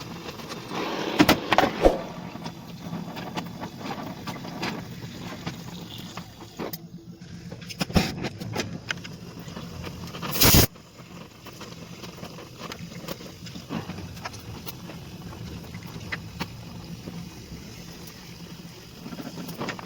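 Car body panel work: scattered knocks and scrapes on sheet metal, with a few sharp knocks near the start and a short, loud burst of noise about ten seconds in, over a faint steady hum.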